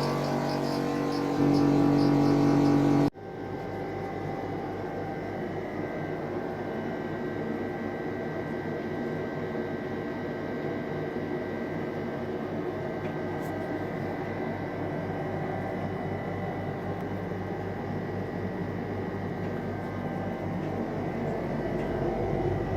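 AEG L9WBA61B's faulty compressor running with a loud, pitched hum for about three seconds. After a sudden cut, the replacement compressor and cooling system run much more quietly, with a steady whir and a faint high whine.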